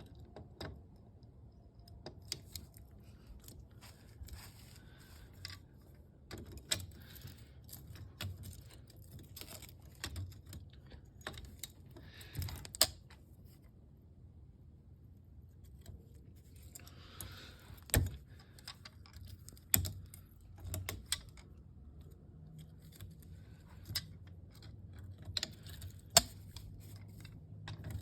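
Scattered metal clinks and knocks of hand tools and sockets being handled while working on the UTV, with pauses between, over a faint low hum.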